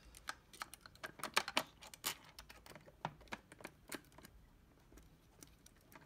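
Small clicks and taps of the parts of a mechanical push-button keypad door lock being handled and fitted together, a quick irregular run for about four seconds, then a few scattered ticks.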